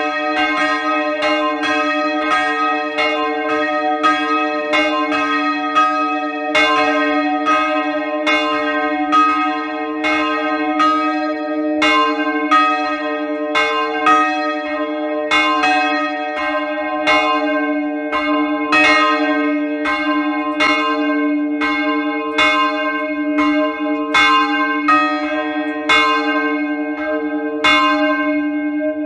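Three church bells ringing together, strokes coming about one to two a second and overlapping over a steady hum of the bells' lingering tones. It is a liturgical ringing, a sign of mourning.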